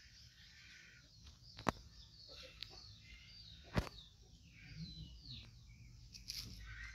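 Small birds chirping and twittering in the background, with two sharp clicks, one a little under two seconds in and one near four seconds.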